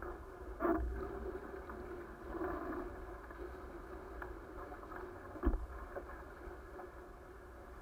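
A-class catamaran hulls rushing through the water under sail, heard as a steady, dull rush with a low rumble. Two knocks come through, one near the start and one about five and a half seconds in.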